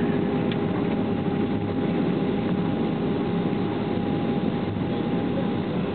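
Airbus A320 cabin noise during the landing rollout: a steady roar of engines, airflow and runway rumble, with two steady whining tones running through it.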